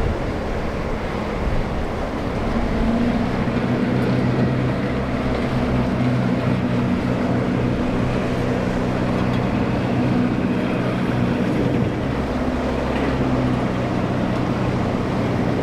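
Engine of a small crane workboat running steadily through choppy water, a low even drone that comes up about two and a half seconds in, over a constant wash of wind and waves.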